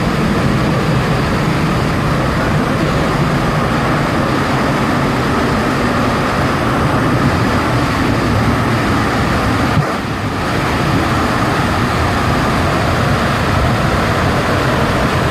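Loud, steady roar of a large waterfall heard from right behind the falling curtain of water, with a brief dip about ten seconds in.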